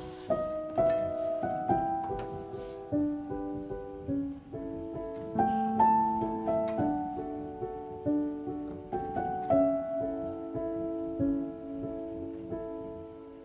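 Background instrumental music: a calm melody of separate notes over held chords.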